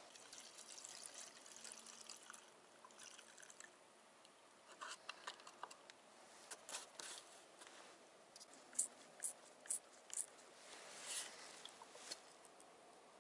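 Faint trickle of liquid poured from a plastic bottle into a chainsaw's tank, followed by a string of sharp clicks and taps from about five to ten seconds in, a few of them louder.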